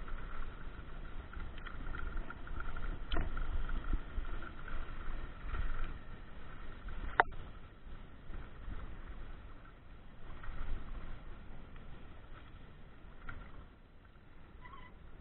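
Mountain bike riding fast on a dirt road, heard from a handlebar-mounted camera: wind rumbling on the microphone and tyre noise over the dirt, with a few sharp clicks and knocks, the loudest about seven seconds in. The noise eases off over the last second or two.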